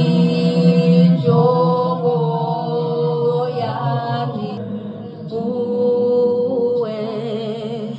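Background music: a slow piece of long, held notes over a steady low drone.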